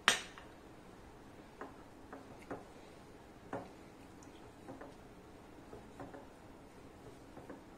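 Hands mixing crumbly flour dough in a glass bowl: a sharp clink right at the start, then faint, irregular ticks and knocks as fingers and the bowl's glass knock together.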